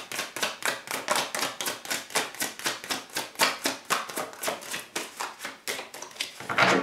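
A deck of oracle cards being shuffled by hand: a fast run of crisp card clicks, about four to five a second. Near the end comes a louder flurry as cards jump out of the deck onto a wooden table.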